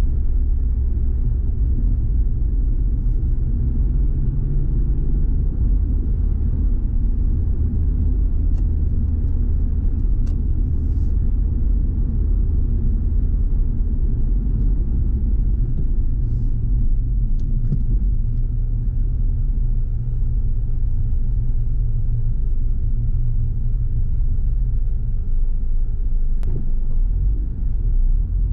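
A car driving, heard from inside the cabin: a steady low rumble of engine and road noise with no change in pace.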